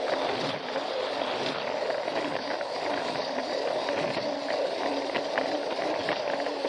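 Plarail toy train running along plastic track, its small battery motor and gears whirring steadily, with scattered light clicks from the wheels.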